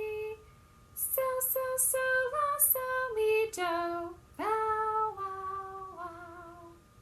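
A woman singing a cappella in solfege syllables: a held note, then a run of short notes stepping downward, ending on a held low note with slight vibrato.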